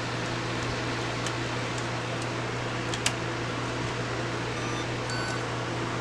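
Steady hum and hiss of background machine noise, with one sharp click about three seconds in.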